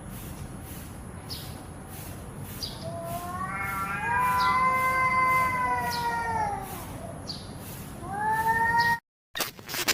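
Domestic cat meowing: one long, drawn-out meow that rises and then falls in pitch, starting about three seconds in and lasting about four seconds, then a shorter rising meow near the end. A steady hiss lies under it, and the sound cuts off abruptly just before the end.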